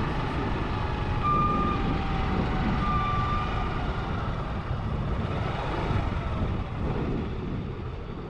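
Motor vehicle engine and road rumble running steadily, with two short high beeps about a second and a half apart, one about a second in and one about three seconds in.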